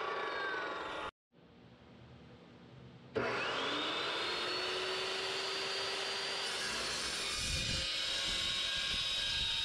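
Metal-cutting chop saw whose whine falls away as the blade spins down. After a short break the saw starts again, its whine rising quickly as the blade comes up to speed. From about seven seconds in, the blade cuts into square steel tubing with a heavier grinding rumble.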